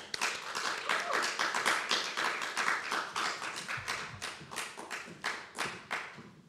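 Audience applauding, many hands clapping at once, thinning out and dying away toward the end.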